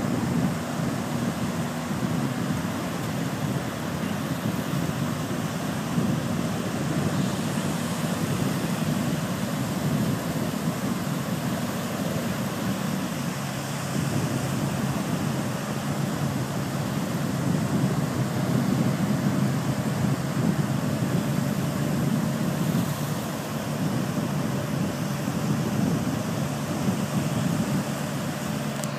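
Surf breaking and wind on the microphone, with the faint steady drone of an engine out on the water, where an amphibious personnel vehicle is heading out through the waves.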